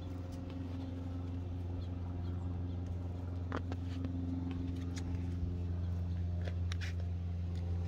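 A steady low machine hum with a few faint clicks.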